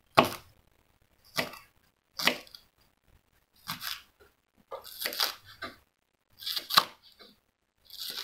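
Fresh green leaves being sliced by hand with a knife: about seven crisp cuts at uneven intervals of around a second.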